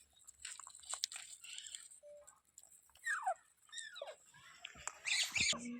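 Pet parrot giving two short squeaky calls, each falling steeply in pitch, about three seconds in, among small clicks, with a short harsh rasping burst near the end.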